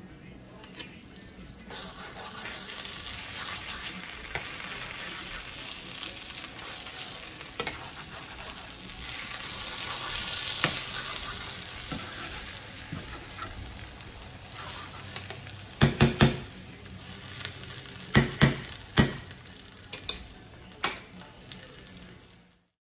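Stuffed baby eggplants sizzling in a skillet while a spoon stirs them. In the second half there are a few sharp knocks of the spoon against the pan, the loudest sounds here.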